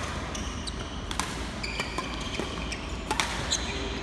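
Badminton rally: rackets smacking the shuttlecock a few times in sharp clicks, with short high squeaks of shoes on the court floor in between.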